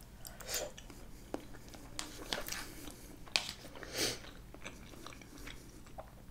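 Chewing a spoonful of pasta salad close to the microphone: soft wet mouth noises with a few light clicks.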